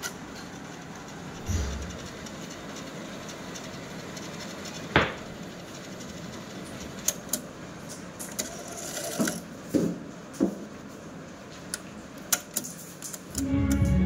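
Cassette deck transport running the tape between plays with a steady mechanical whir, broken by the clack of its piano-key controls: a low thump, a sharp click about five seconds in, and several more clicks later. Tape music starts playing just before the end.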